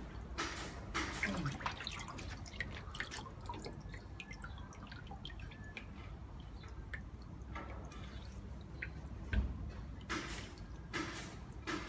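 Shallow water in a plastic tub splashing and dripping as a snapping turtle moves and a loach wriggles in its jaws. Splashes come in the first second or so and again near the end, with small drips and ticks in between and one low thump about nine seconds in.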